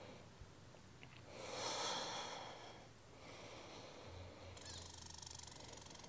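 A person's single soft breath out, lasting about a second and a half, beginning just over a second in. Otherwise only faint background hiss.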